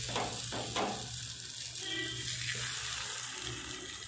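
Masala-coated elephant foot yam slices sizzling in shallow oil on a nonstick tawa, a steady hiss that swells briefly in the first second as another slice goes into the oil.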